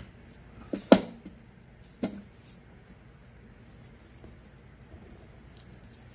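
A few sharp knocks and taps of small objects being handled and set down on a hard work surface, the loudest about a second in, then only faint light ticks.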